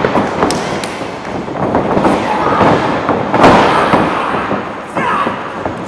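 Live wrestling crowd in a gymnasium, a dense wash of claps and shouts, with several sharp cracks and the loudest crack about three and a half seconds in.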